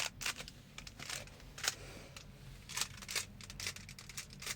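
Rubik's cube being scrambled: quick, irregular plastic clicks and clacks as its layers are turned, several a second.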